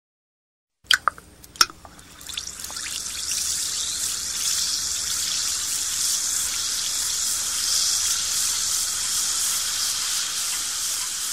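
A few sharp drip-like clicks about a second in, then a steady high hiss that builds up and holds, like running liquid or sizzling.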